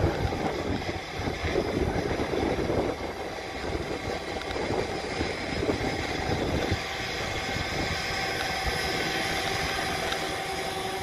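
Blade 500X electric RC helicopter hovering, its motor and rotor blades giving a steady whine. Gusty wind rumbles on the microphone through the first half.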